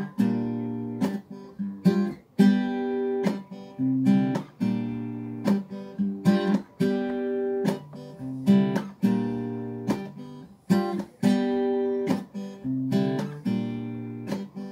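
Acoustic guitar strummed solo in a repeating rhythmic pattern, each chord ringing on between the strokes.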